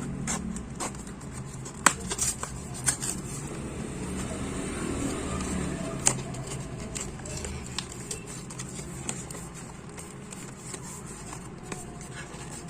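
Hand work with small parts: a few sharp clicks and taps, the loudest about two seconds and six seconds in, over a steady low rumble, as the SSD is freed from its packaging with a cutter and handled.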